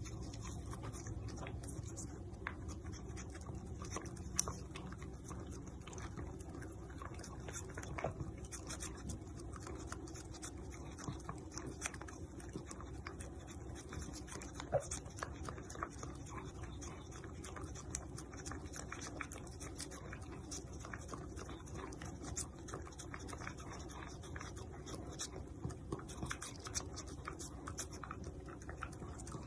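A long-haired dachshund licking paste from a squeeze-stick treat: a steady run of small, quick licking clicks and mouth smacks, over a low steady room hum.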